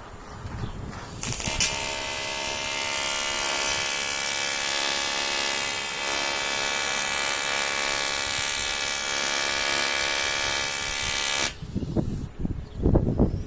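Welding arc buzzing steadily on aluminium for about ten seconds while weld metal is built up on a semi-trailer's guide rail. It starts suddenly with a click and cuts off abruptly. A few dull low thumps follow near the end.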